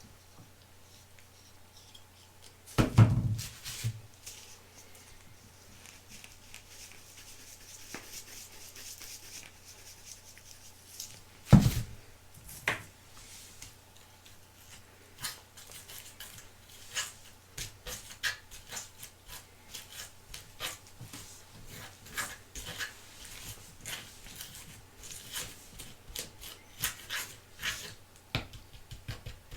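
Close-up hand handling: soft rubbing and many small scattered clicks and taps, with two heavier knocks about three and twelve seconds in, over a faint low steady hum.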